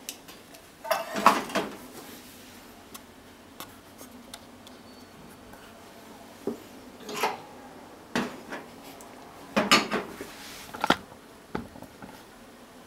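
Chopsticks scraping and clinking against a frying pan and a ceramic bowl as food is pushed out of the pan, in several short bursts of clatter, the loudest about a second in.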